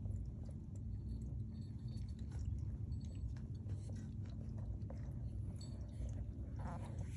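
Lynx point Siamese kitten crunching dry kibble: faint, irregular crunches over a steady low hum.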